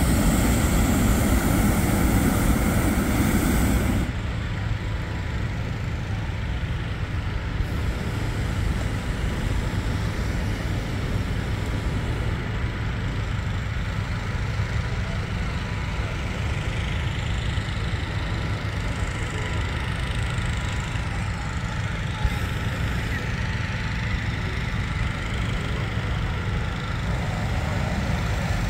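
Hot-air balloon propane burner firing into the envelope during inflation, a loud steady rush that cuts off about four seconds in. After it, gas-engine inflator fans run with a steady low drone.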